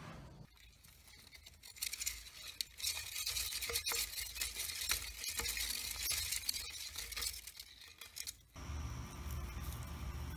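Hamster wheel spinning: a hissing scrape with rapid clicking and rattling for about seven seconds, which cuts off abruptly near the end and gives way to a low steady rumble.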